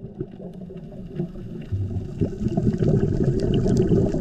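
Muffled underwater sound picked up by a diving camera: a low, noisy water rumble with scattered faint clicks, growing louder about halfway through.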